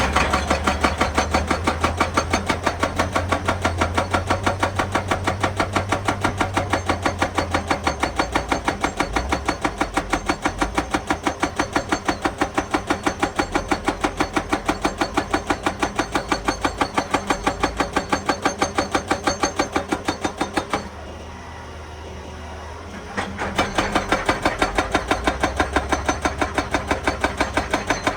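Hydraulic rock breaker on a Hitachi EX200 excavator hammering rock in rapid, even blows over the excavator's running engine. The hammering stops for about two seconds near the end, leaving the engine alone, then starts again.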